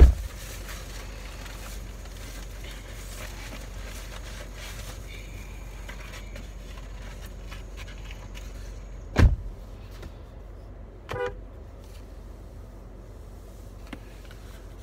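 Car engine idling, heard from inside the cabin as a steady low hum. Two loud thumps come at the start and about nine seconds in, and a fainter knock near eleven seconds.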